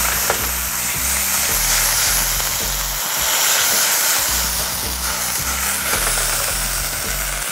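Green beans and shallots sizzling in a hot stainless frying pan as a splash of vodka cooks off, with steady hissing, under background music with a low bass line.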